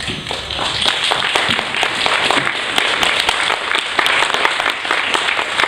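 Audience applauding, many hands clapping at once; the clapping grows louder about a second in.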